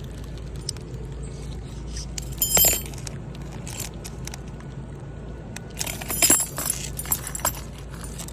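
Two short bouts of light metallic clinking and jingling, one about two and a half seconds in and a longer cluster around six to seven seconds, over a steady low hum.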